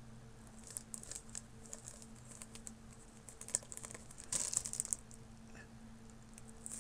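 Clear plastic wrapping crinkling and crackling as a model airliner fuselage is handled and pulled from its bag, in scattered light clicks that grow into a denser burst of crinkling about four to five seconds in. A faint steady hum runs underneath.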